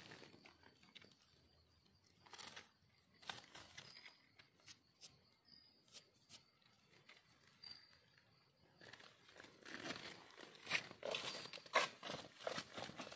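Dry leaf litter rustling and crackling in scattered soft bursts as a mushroom is dug out with a knife and handled, then footsteps crunching through dry leaves, louder and more continuous, from about nine seconds in.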